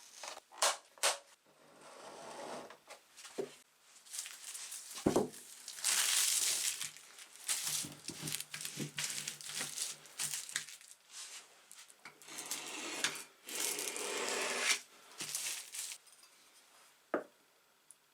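Hands working on the parts of an antique brass coffee grinder: short clicks and clinks of small metal parts being handled and set down, with a few stretches of scraping or scrubbing a second or two long.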